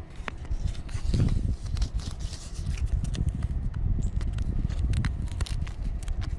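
Hook-and-loop Velcro strap being handled and worked through a snipped hole, its hooks catching and peeling apart in a crackly run of small rasps and clicks over a low handling rumble.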